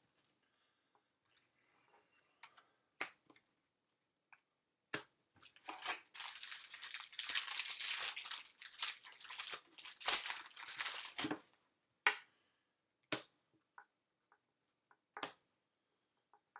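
Foil wrapper of a Bowman baseball card pack being torn open and crinkled, a dense crackle from about five to eleven seconds in. Scattered sharp clicks before and after as the cards are handled.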